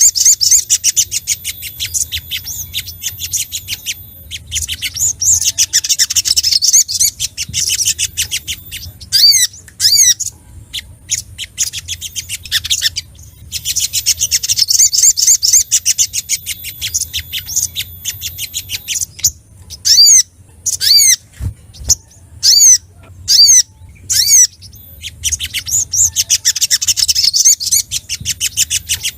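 Sogok ontong (little spiderhunter) calling agitatedly, as a bird challenging a rival: long runs of rapid, high chattering trills alternate with stretches of separate sharp, down-slurred chip notes, at about 9 to 12 seconds in and again at about 20 to 24 seconds in.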